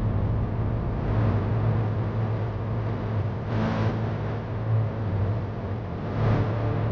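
High-speed soldering machine running with a steady low hum. A short rushing noise rises over it about every two and a half seconds as the machine cycles.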